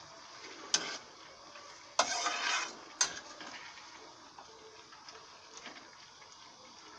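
Perforated metal spatula stirring vegetables in a metal kadai, clinking against the pan three times about a second apart, with a short scrape after the second clink.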